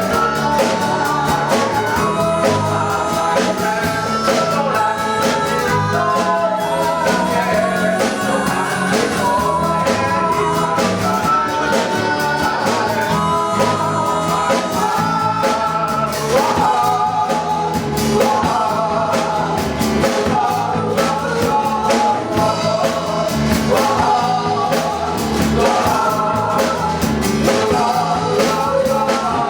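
Live band performing a song: sung vocals over guitar and drums, with the full ensemble playing at a steady level.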